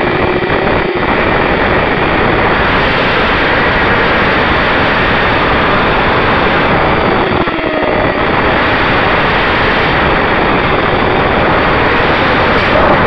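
ZMR250 FPV racing quadcopter's motors and propellers in flight, heard from its onboard camera: a loud, steady rush of prop and wind noise with a faint motor whine that shifts in pitch with the throttle.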